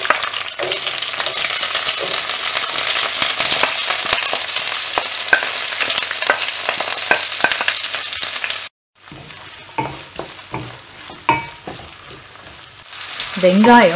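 Chopped onions frying in hot oil in a kadai, a loud steady sizzle with frequent sharp crackles. After a short break a little past halfway, the sizzle is quieter, with the clicks and scrapes of a wooden spatula stirring the onions, and it grows louder again near the end.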